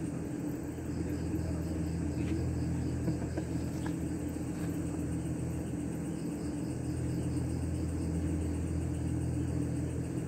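A steady low mechanical hum that does not change, with crickets chirping faintly.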